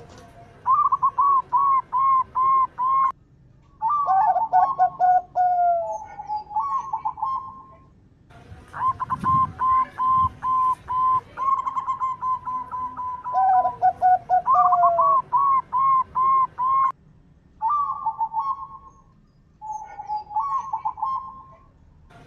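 Perkutut (zebra doves) cooing. They give phrases of quick staccato coo notes, about three a second, some notes sliding down in pitch, with short pauses between the phrases.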